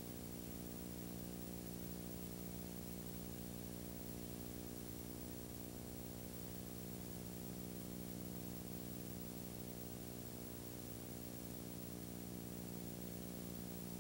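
Steady electrical hum with a stack of buzzing overtones over constant hiss, unchanging throughout.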